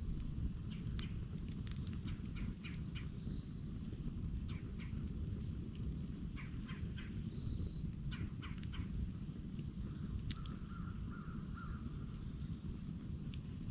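Campfire burning, with frequent sharp crackles and pops over a steady low rumble. A bird calls briefly, in a short run of notes, about ten seconds in.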